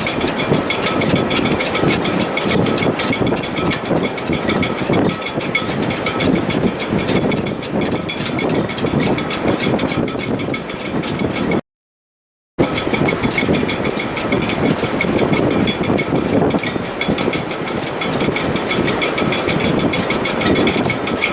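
Wind in a sailboat's rigging in heavy weather: a loud, steady, gusting roar with faint steady whistling tones from the shrouds above it. The sound breaks off completely for about a second midway, then resumes.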